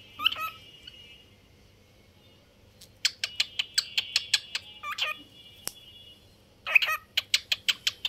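Cockatiel chirping: a short call near the start, then after a pause two quick runs of short sharp chirps, about six a second, over a thin steady whistle.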